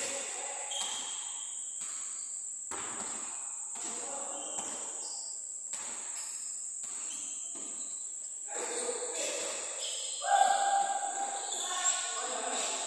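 Basketballs bouncing on a wooden sports court in a large hall, a series of knocks, over a steady high-pitched drone. Players' voices, with a loud held call about ten seconds in.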